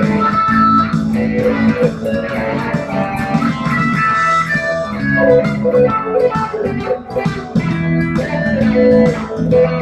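Electric guitar playing improvised lead lines with held notes in a happy rock-blues in E, over a backing track with a bass line and a steady drum beat.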